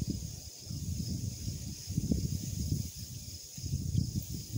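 Wind buffeting the microphone in gusts, a low rumble that rises and falls, easing briefly twice, with a faint steady high hiss above it.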